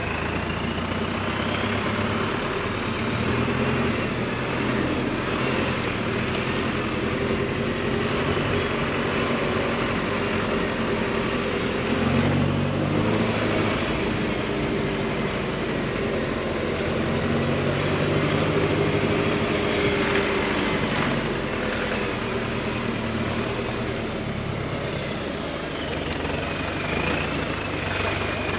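Off-road 4x4 engine running with a steady drone that shifts slowly in pitch, with a high whine above it that rises and falls.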